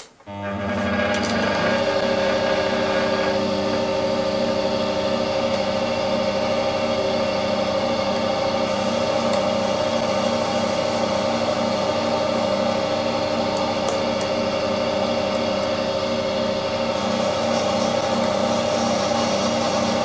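Small bench metal lathe starting about half a second in and running steadily, its motor and drive giving a steady hum. A high hiss joins from about a third of the way through and grows stronger near the end as the tool cuts the small metal workpiece.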